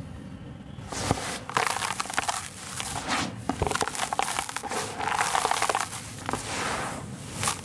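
Dry sand-and-cement powder crumbled and rubbed between hands, a gritty crunching with many fine crackles as grains and lumps break and pour. It comes in louder surges, beginning about a second in.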